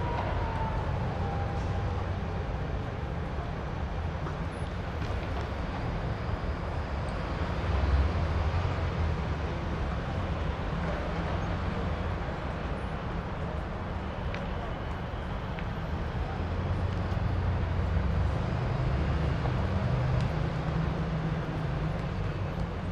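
Outdoor background noise at night: a steady low rumble with a hiss over it, swelling about eight seconds in and again in the last third.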